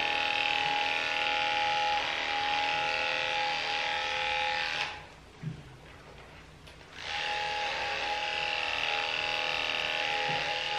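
Cordless electric dog-grooming clippers running with a steady, even hum. The hum stops about five seconds in and starts again about two seconds later.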